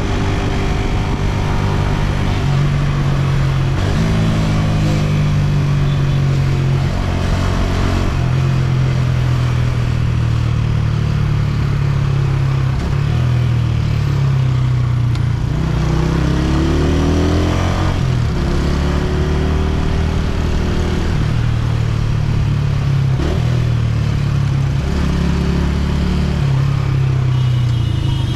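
Honda CG125's single-cylinder four-stroke engine running while riding, its pitch climbing as it revs and stepping down again between shifts, with two clear rev-ups, one about four seconds in and one about sixteen seconds in.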